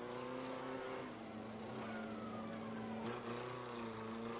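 Demolition derby cars' engines running hard and revving, with a thump about three seconds in.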